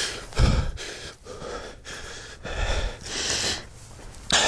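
A person breathing heavily in loud, uneven breaths close to the microphone, with two short low thuds, one about half a second in and one a couple of seconds later.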